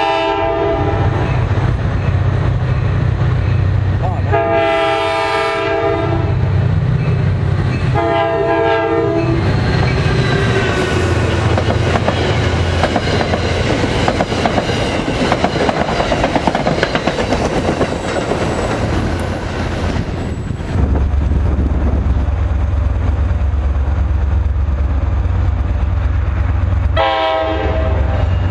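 NJ Transit F40PH-2CAT diesel locomotive sounding its horn in long blasts as it approaches at speed, three in the first ten seconds over its engine drone. Its passenger coaches then rush past with wheel and rail noise. Near the end a second diesel locomotive, a GP40PH-2, drones as it approaches and gives one more horn blast.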